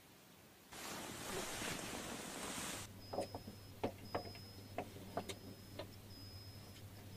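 About two seconds of hiss. Then light clicks and taps, about ten of them, as fingers touch a galvanized metal rat-trap cage, over a low steady hum and a thin high tone that sounds in four short stretches. It all cuts off suddenly at the end.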